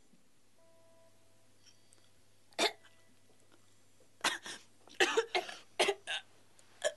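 A person coughing: a single cough about two and a half seconds in, then a quick run of harsh coughs and gasps from about four seconds on.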